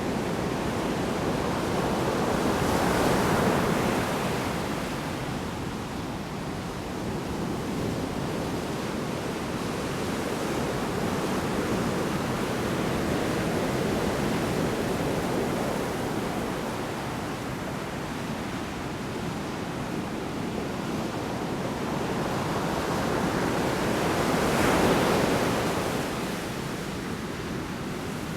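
Large storm waves breaking on the shore: a continuous rushing surf with two bigger breakers swelling and fading, one about three seconds in and one near the end.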